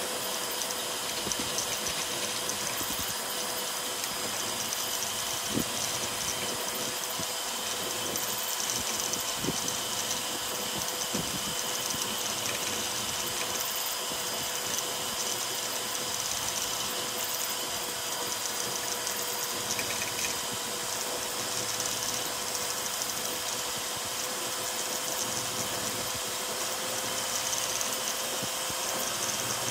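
ZeroG Mercury 1.1-converted Ender 5 Pro 3D printer running a fast print job. The CPAP part-cooling blower gives a steady hiss and whine, with the stepper motors and belts whirring as the toolhead darts about.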